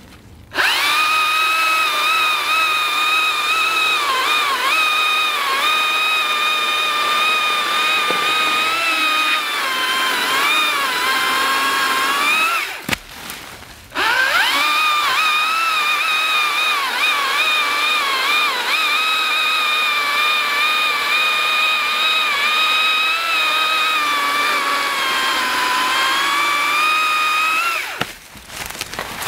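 Stihl MSA 161T battery top-handle chainsaw cutting a log: a loud, steady electric whine that dips in pitch now and then as it loads up in the cut. It stops for about a second near the middle, starts again for a second run, and cuts off near the end.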